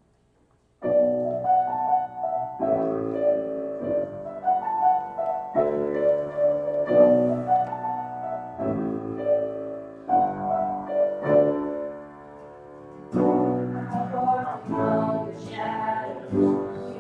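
Piano playing slow, sustained chords as the introduction to a worship song, starting about a second in after near silence, with the chord changing every second or two.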